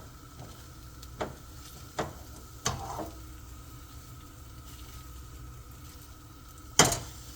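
Beaten eggs sizzling in hot oil in a frying pan, with a few sharp knocks; the loudest comes near the end.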